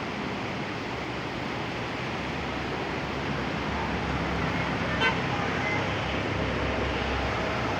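Steady roar of rushing floodwater, with a motor vehicle's low engine rumble building in the middle and a brief sharp sound, like a short horn toot, about five seconds in.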